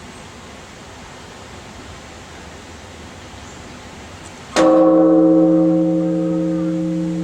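Large bronze Buddhist temple bell (bonshō) struck once for the noon time signal about four and a half seconds in. It rings on in several steady tones that slowly fade, the deepest holding longest. Before the strike there is only a steady hiss.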